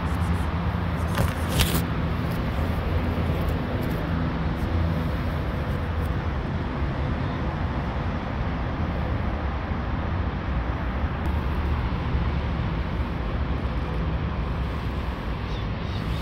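Steady road traffic noise, a constant low rumble of passing cars, with a couple of brief clicks about one and a half seconds in.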